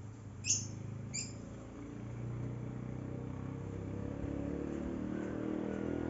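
Two short, sharp bird chirps about half a second apart near the start, followed by the low hum of a motor vehicle's engine that builds from about two seconds in and keeps running.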